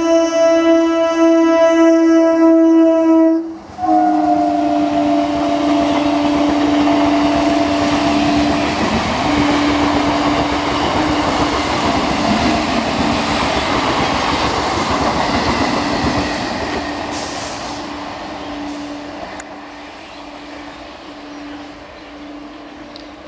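Electric multiple-unit (EMU) local train's horn held in a long blast that cuts off, then another long horn blast that carries on in broken pulses. Under it, the train's running noise and wheel clatter swell as it passes, then fade.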